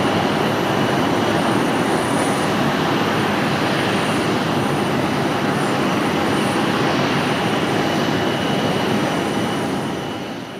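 Airbus A320's twin jet engines running at low taxi power as the airliner taxis past: a steady rushing noise with a thin high whine, fading away near the end.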